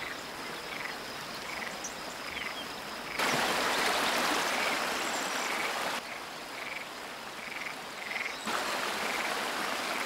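Marsh frogs calling: a short croak repeating regularly, more than once a second, over a steady hiss of wetland ambience that grows louder for a few seconds in the middle.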